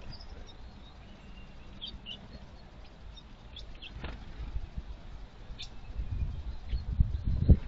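Blue tits giving short high chirps, with a single knock about four seconds in. From about six seconds in come low thuds and scratching of a blue tit at the wooden nest box's entrance hole, growing louder toward the end.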